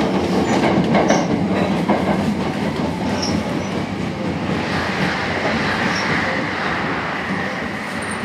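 Sanyo Electric Railway 5000 series train heard from inside a trailer car. Its wheels click over rail joints in the first couple of seconds, then give way to a steady wheel-and-brake hiss as the running noise slowly fades and the train slows.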